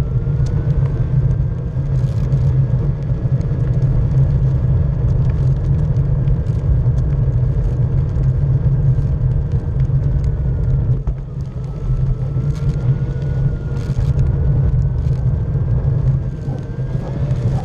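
A small wheeled vehicle driving along a path: steady tyre rumble on the surface, with a thin motor whine that dips about eleven seconds in and then rises again.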